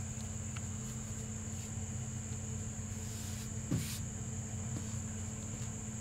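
Steady background hum with a constant high-pitched whine over it; a brief faint rustle a little past halfway.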